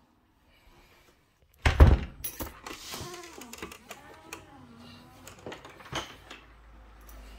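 An interior door thumps loudly about a second and a half in, followed by knocks and a wavering creak as it is opened and walked through. A low steady hum sets in near the end.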